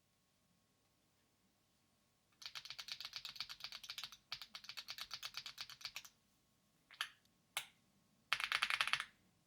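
Typing on an AULA F75 mechanical keyboard with linear LEOBOG Reaper switches. After a quiet start come two runs of rapid keystrokes with a short pause between them, then two single key presses and a final quick burst of keystrokes.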